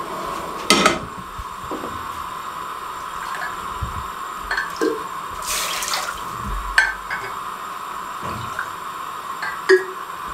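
An aluminium saucepan is set down on a gas stove grate with a knock about a second in, then water is poured into it from a plastic measuring jug, with a few light clicks and knocks of the jug and pot.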